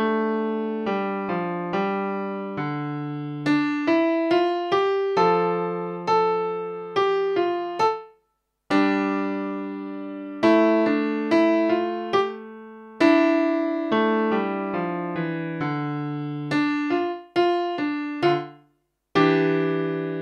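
Digital stage piano played with both hands at a slow practice tempo: a simple beginner-grade piece in separate struck notes and chords. The sound breaks off to complete silence twice, about eight seconds in and again near the end.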